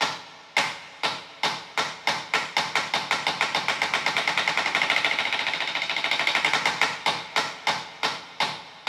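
A series of sharp clicks or taps, each with a short ringing decay. They start about a second apart, speed up into a rapid rattle in the middle, then slow down again.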